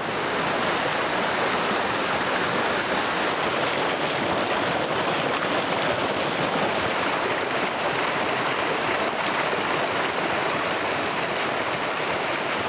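Small waterfall of silty water pouring down sandstone and splashing below: a steady rushing and splashing.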